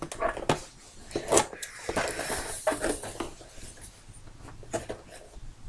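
Scissors snipping at a toy's packaging box: a few sharp cuts in the first second and a half, then a longer rustle of the box about two to three seconds in, and a few faint clicks after.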